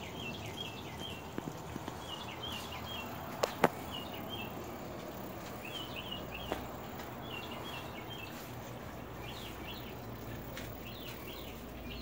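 A small bird chirping in short repeated phrases of quick high notes, one phrase every second or so, over a faint steady outdoor background. Two sharp clicks come about three and a half seconds in.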